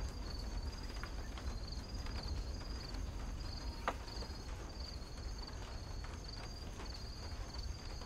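Insects chirping in short repeated trills over a low steady background hum, with one faint click about four seconds in.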